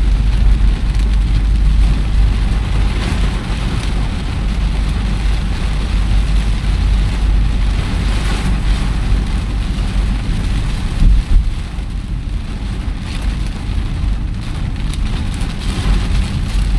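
Rain drumming on a car's roof and windows, heard from inside the cabin over a steady low rumble, with a brief louder thump about eleven seconds in.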